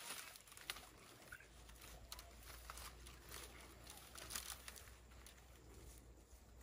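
Near silence with faint scattered rustling and a few light clicks.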